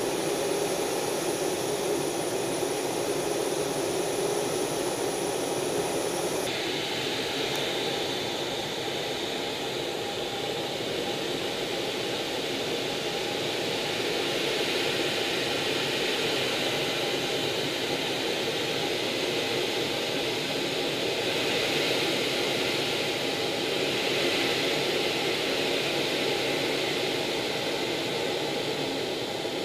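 Steady rushing drone of jet engines heard from inside an aircraft in flight. About six seconds in, the sound changes abruptly: a faint high whistle drops out and the rush turns brighter.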